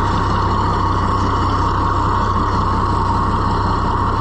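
Oliver farm tractor's engine running steadily as the tractor drives slowly across the pasture.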